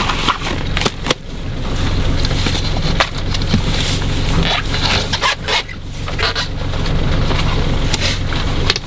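Sailboat's inboard diesel engine idling steadily, with wind on the microphone and a few short knocks from lines and gear on deck.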